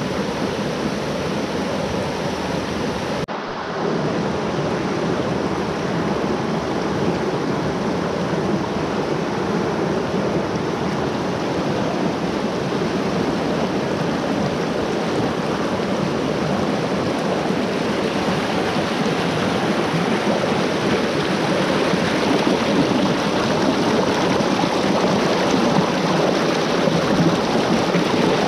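Shallow creek water rushing over rock ledges in small cascades, a steady rush. There is an abrupt cut about three seconds in, after which the water is heard from close to the surface and grows a little louder toward the end.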